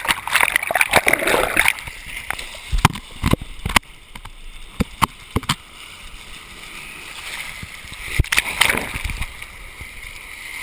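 Sea water washing in over rocks and splashing close around the camera, with sharp pops and knocks scattered through it. A second wave surges through a little before the end.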